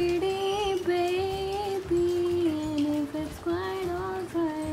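A woman singing a slow melody in long held notes, each note sliding into the next.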